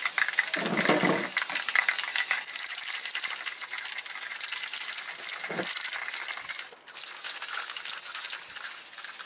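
Aerosol can of clear varnish spraying onto the chair in long hisses, crackly at first, with a short break about seven seconds in.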